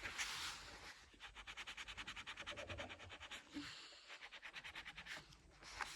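Eraser rubbed quickly back and forth on paper, about eight strokes a second, in two spells with a short pause between.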